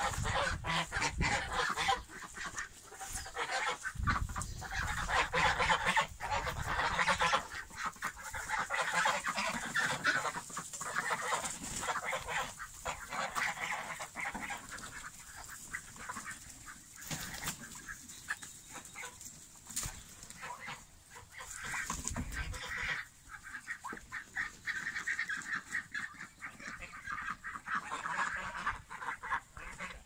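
Domestic geese honking again and again, with ducks and chickens calling among them. The honking is thickest in the first several seconds and swells again near the end.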